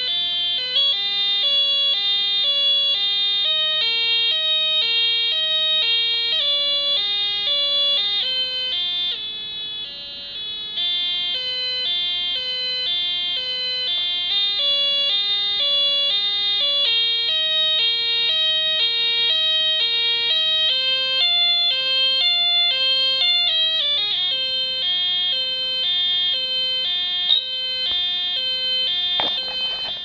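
Two-tone siren from a homemade circuit of two 555 timer ICs driving a small speaker: a buzzy electronic tone that steps back and forth between a higher and a lower pitch about twice a second. It dips briefly in loudness about ten seconds in.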